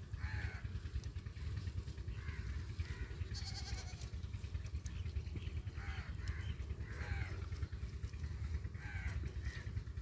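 Faint animal calls, about half a dozen short ones spread through, over a steady low rumble.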